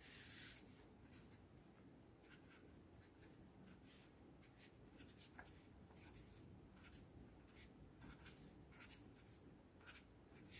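Faint scratching of a green felt-tip pen writing numbers on paper, in many short strokes that come more often in the second half.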